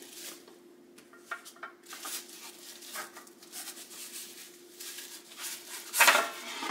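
Unpacking noise: scattered light clinks and knocks with rustling of bubble wrap and cardboard as a boxed set of wooden floating shelves is handled, with a louder burst of rustling near the end.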